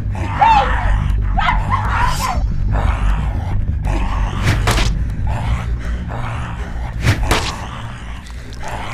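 Horror-film sound mix: a low drone underneath throughout, pitched cries in the first couple of seconds, then a few sharp thudding hits of a blade being swung and struck, about four and a half and seven seconds in.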